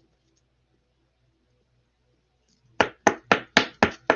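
Almost silent for the first two and a half seconds, then a quick, even run of sharp taps, about four a second, starting nearly three seconds in.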